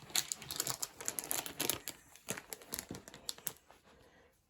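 Packaging crinkling and rustling as it is handled, a dense irregular crackle that stops about three and a half seconds in.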